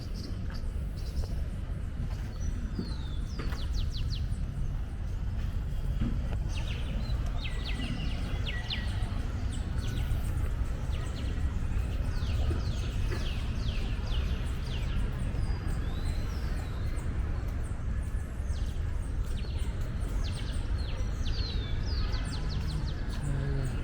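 Small birds chirping and giving rapid trills, repeatedly, over a steady low background rumble of an urban park.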